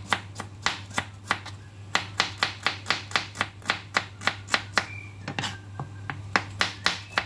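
Kitchen knife chopping bawang bulbs on a cutting board: sharp knife taps about three to four a second, with a brief pause near the end, over a steady low hum.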